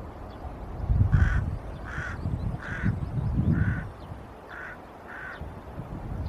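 Rooks cawing: six short caws spaced roughly a second apart, over a low rumble.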